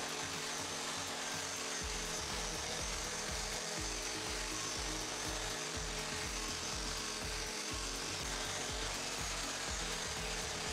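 Electric angle grinder running steadily with an abrasive disc, grinding and smoothing the face of a steel plate, a continuous harsh grinding hiss, over background music with a bass line.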